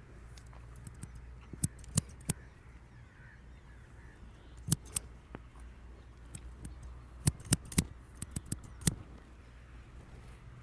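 Scissors snipping: sharp clicks in short, irregular clusters, about a dozen in all, loudest around the middle and again in a quick run a little later.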